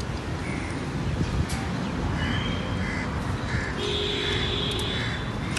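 Crows cawing several times over steady outdoor background noise, with a held higher tone joining about four seconds in.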